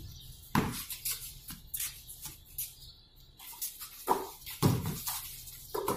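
Basketball bouncing on a concrete court: sharp thuds about half a second in and twice around four to five seconds, with lighter taps and scuffs between.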